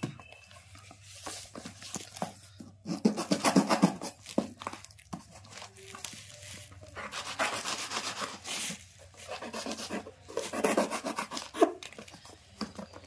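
Packing tape pulled off its roll in three rasping bursts, with hands rubbing and pressing it onto corrugated cardboard wrapped around a PVC pipe.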